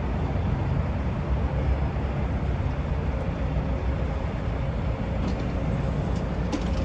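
Steady low rumble of idling vehicle engines, with a faint steady hum above it.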